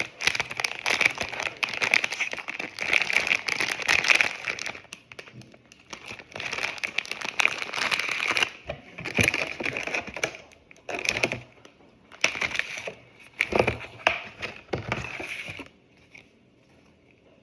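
Packaging being crumpled and handled, a crinkling crackle that is dense for about the first five seconds, then comes in separate handfuls, and stops a little before the end.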